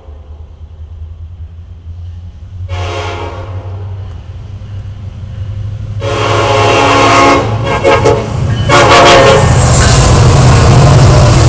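Air horns of a pair of Norfolk Southern EMD SD70M-2 diesel locomotives sounding several blasts: a short one about three seconds in, a longer one about six seconds in, and another short one about nine seconds in. Under the horns the locomotives' diesel rumble and the rush of the train build steadily until they are very loud near the end as the train comes close.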